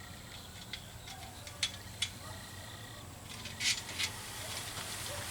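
Small trim end pieces being handled and slid into place on a pickup's core support: a few scattered light clicks and taps, with a slightly louder cluster a little past the middle.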